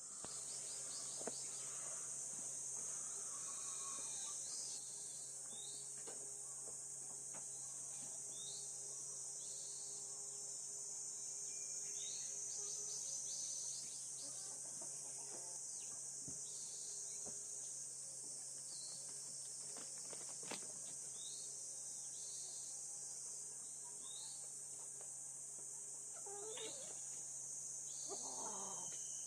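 Steady, high insect drone, with short bird chirps repeating every second or two. Near the end, a chicken clucks.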